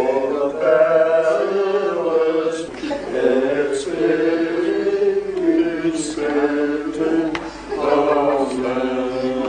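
A small group of voices chanting a hymn, in long held phrases with two short breaks between them.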